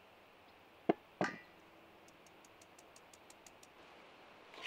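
A click and then a louder metallic clink of a steel sieve against a steel mixing bowl, ringing briefly. It is followed by a run of faint, quick high ticks, about six a second.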